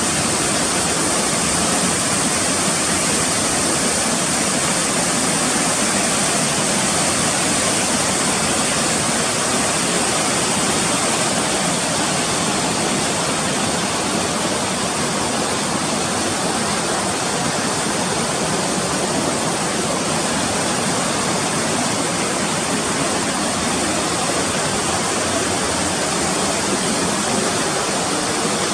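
Rushing mountain water, a steady and unchanging rush.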